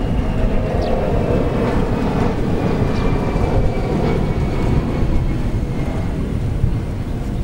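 Steady rumble of wind buffeting the microphone, with a few faint high chirps.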